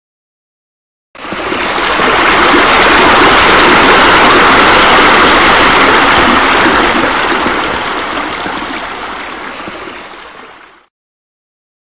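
Running water rushing steadily. It starts abruptly about a second in, fades over its last few seconds and cuts off shortly before the end.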